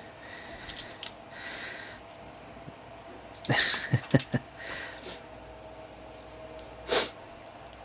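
A person breathing out hard through the nose twice, about three and a half and seven seconds in, while small hard plastic pieces click as they are pushed into a toy figure.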